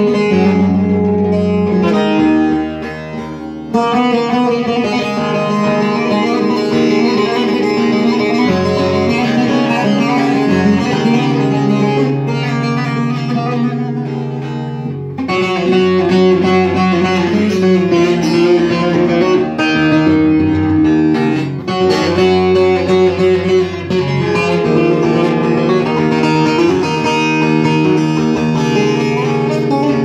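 A plucked string instrument played as an instrumental improvisation, with the level dropping briefly about three seconds in.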